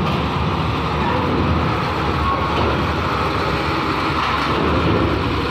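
Mitsubishi Fuso 220PS truck's diesel engine running steadily as the truck drives down a steel ferry ramp and passes close by.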